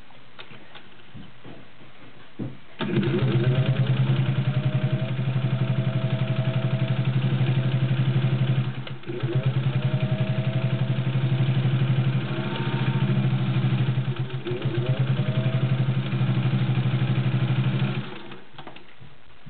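Singer 201-2 sewing machine's potted motor driving the needle directly, stitching fast and steadily through three layers of suede and leather. It starts about three seconds in, eases off briefly twice in the middle, and stops near the end.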